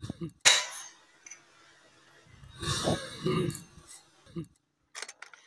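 An air gun fired once, a sudden sharp report about half a second in. A person's brief wordless vocal sound follows around the middle.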